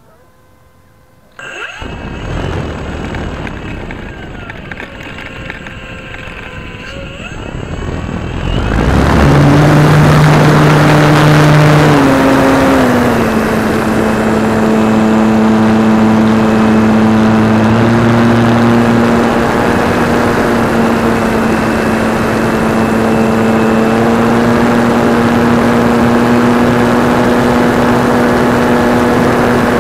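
Radio-controlled SIG Senior model airplane's motor and propeller, heard from a camera on its wing: starting suddenly about a second and a half in at low throttle, then opened up to full power about nine seconds in for the takeoff run and climb. The pitch steps down slightly a few seconds later and then holds as a loud, steady drone.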